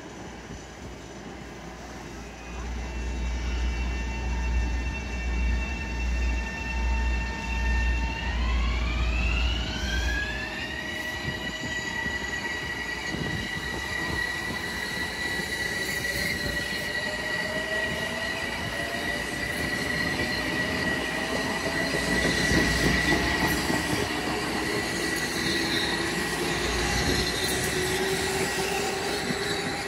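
Metro-North M7A electric multiple-unit train pulling out and passing close by: a whine of several steady tones that glides up in pitch about eight seconds in as the train gathers speed, then holds high, with lower tones rising slowly later, over the rumble of wheels on rail.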